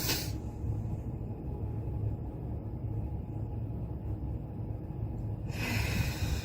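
A woman's deep breath in through the nose ends just after the start, then the breath is held for about five seconds over a low steady rumble, and about five and a half seconds in she breathes out through the mouth in a long rush of air, a deep-breathing exercise with a five-count hold.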